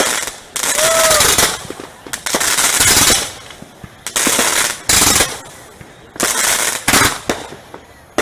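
Fireworks going off in a rapid series of loud bangs, each followed by a brief crackling decay, about one every one to two seconds.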